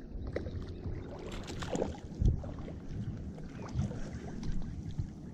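A hooked bass splashing and thrashing at the water's surface in the shallows as it is landed: irregular splashes, the loudest about two seconds in.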